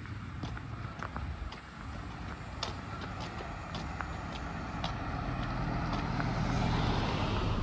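A car approaches along the road; its tyre and engine noise swells over the last few seconds as it comes close. Light sharp clicks sound now and then throughout.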